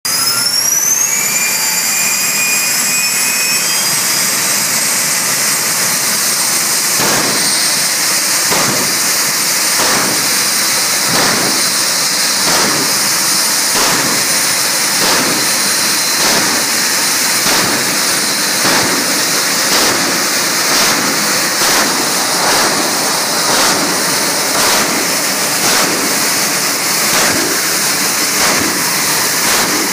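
Exhibition rocket car's engine running at the drag strip's starting line: a rising whine in the first two seconds, then a steady loud roar and hiss, pulsing about every three-quarters of a second from about seven seconds in.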